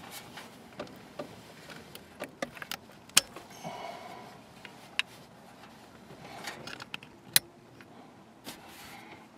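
Handling noises as a cable is worked and its small plastic plug is pushed into a junction box: scattered clicks and rustles, the sharpest click about three seconds in and another about seven seconds in.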